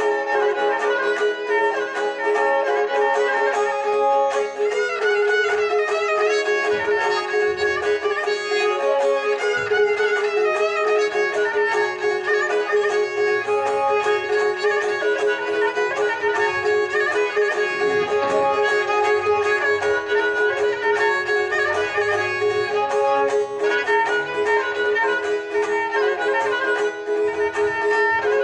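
Instrumental duet of dotar and kamancheh: the bowed kamancheh plays the melody over a steady held note while the two-stringed dotar is plucked in quick, even strokes.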